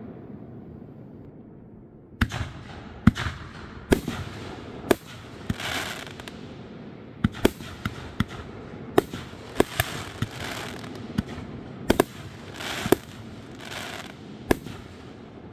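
Aerial fireworks bursting overhead: a string of sharp bangs, sometimes two or three close together, starting about two seconds in, with stretches of crackling hiss from the glitter effects between them.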